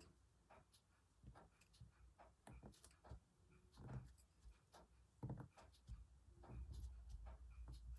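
Near silence with faint, scattered clicks, taps and rustles of hands working on a hand-embroidery piece, handling fabric and small sewing tools; a low rumble comes in near the end.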